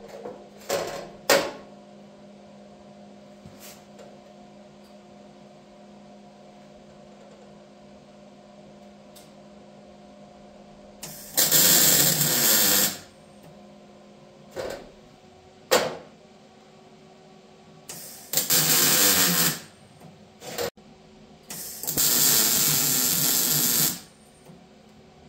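Wire-feed welder arcing on the steel cap plates of a truck frame rail: three welds of about one and a half to two seconds each in the second half, with a few short bursts between them and at the start.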